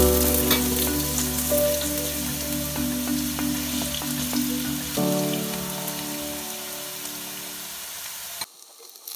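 Potato pieces sizzling as they fry in hot oil in a pan, with a few light clicks as silicone-tipped tongs turn them. The sizzle cuts off abruptly near the end.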